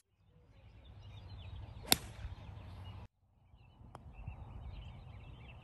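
A single sharp click of a putter striking a golf ball about two seconds in, over low wind rumble on the microphone; a much fainter tap follows about four seconds in, with birds chirping faintly in the background.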